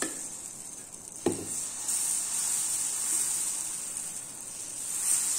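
Adai batter sizzling steadily on a hot cast-iron dosa tawa while it is spread with a ladle, with a sharp knock about a second in.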